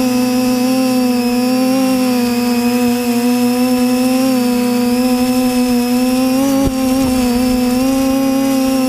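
TBS Discovery quadcopter's four brushless motors and propellers buzzing at a steady pitch, heard from the camera mounted on the frame; the pitch dips and rises slightly with throttle. One brief low thump about two-thirds of the way in.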